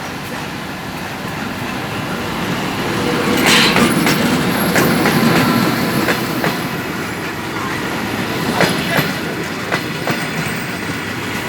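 Suburban passenger train passing, its wheels clacking over the rail joints in a string of sharp knocks over a running rumble that swells about a third of the way in.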